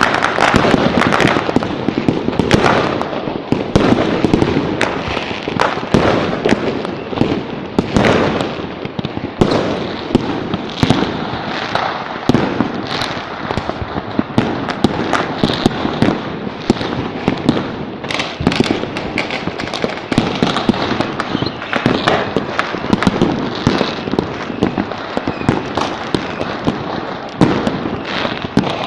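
Dense, continuous barrage of fireworks and firecrackers: many overlapping cracks and bangs, near and far, with no pause.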